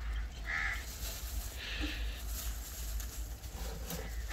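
A bird cawing twice, about a second apart, harsh calls over a steady low rumble.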